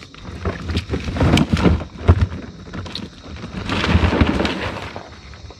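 Ice cubes clattering and knocking as someone digs in them for a drink, with many quick irregular knocks over low rumbling handling noise.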